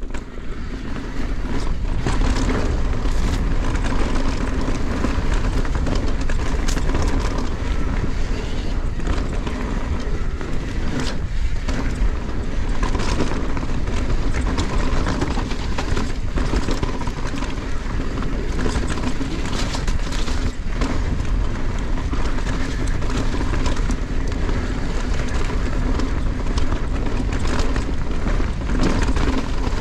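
Wind rushing over a GoPro Hero 10's microphone while a Yeti SB160 mountain bike descends a dry, rocky dirt trail: knobby tyres rolling over dirt and stones, with frequent clicks and rattles from the bike as it runs over rocks and ruts. The noise builds up over the first second as the bike gets rolling, then stays steady.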